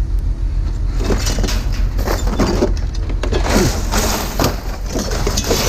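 Scrap metal being handled and tossed, with scraping and clattering noises from about a second in, over a steady low rumble.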